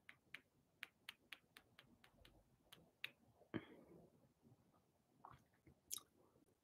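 Near silence with faint, sharp clicks, irregular at about three a second at first and sparser later: light fingernail taps on a smartphone screen. A brief soft sound comes about three and a half seconds in.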